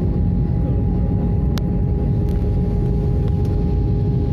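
Steady cabin roar of an Airbus A320 in flight, heard inside the cabin: its CFM International engines and the airflow make an even rumble with a steady whine over it. One sharp click about a second and a half in.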